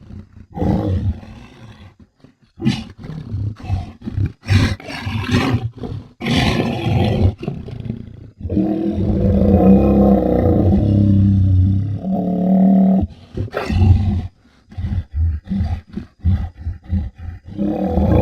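Monster vocal sound effects: a string of short, separate bursts with sharp cut-offs, then one long, deep, pitched roar of about four seconds from a little before halfway through, then more short bursts near the end.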